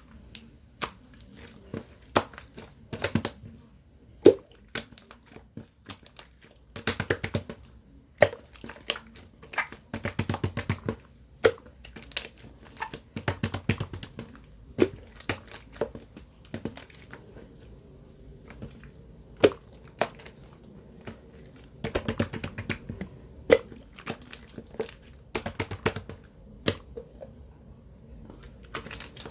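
Close handling noise: irregular crinkling and crackling with many sharp clicks.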